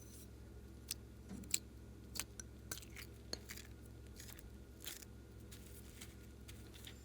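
Glossy slime being mixed, giving scattered sharp clicks and crackling pops, about a dozen through the middle few seconds, over a steady low hum.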